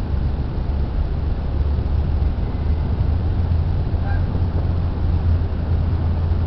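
A steady low rumble dominates, with a faint goose call about four seconds in.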